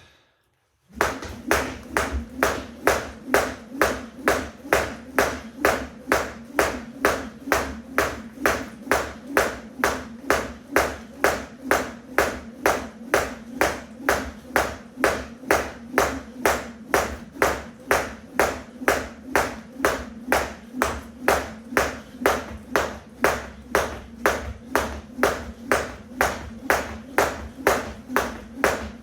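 Weighted 1 lb jump rope skipping: the rope slaps the floor in an even rhythm of about two strikes a second. It starts about a second in.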